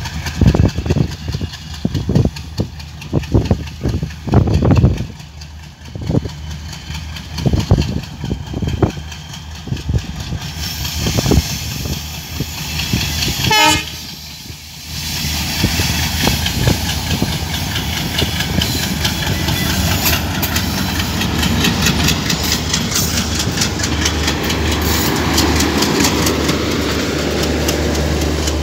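Diesel-hauled passenger train approaching and passing close by: an uneven low rumble as the locomotive nears, then from about halfway a steady rushing clatter of the coaches' wheels over the rails.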